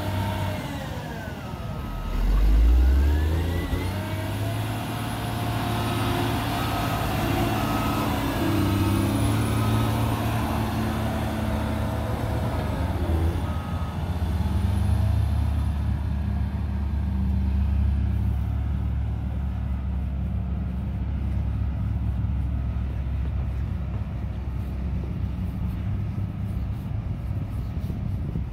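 Caterpillar 140M motor grader's diesel engine running under load as it works the dirt, rising in pitch and loudness briefly about two seconds in, then a steady rumble as it moves off. A reversing alarm beeps at an even pace through the first half.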